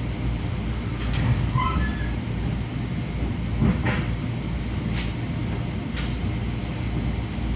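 Long Island Rail Road commuter train running, heard from inside a car: a steady low rumble with a few sharp clicks and knocks, and brief high squeaks between one and two seconds in.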